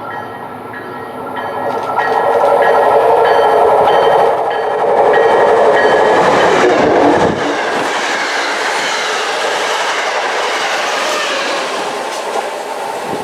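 MBTA commuter rail train going by, wheels clattering on the rails. The noise builds about two seconds in, is loudest for the next few seconds, then settles into a steadier rush as the cars pass.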